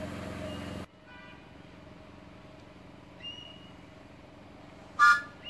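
An engine running steadily, cutting off abruptly within the first second. Then a quieter background with a few short, high, rising bird chirps and one loud, very short sharp sound about five seconds in.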